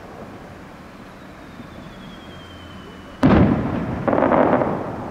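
Firework shell whistling with a slowly falling pitch, then a loud burst about three seconds in and a second burst a moment later, dying away in a rumbling tail.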